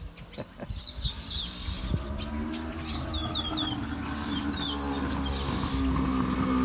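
Small birds chirping in quick, descending notes, while a motorcycle's engine drone comes in about two seconds in and grows steadily louder as it approaches.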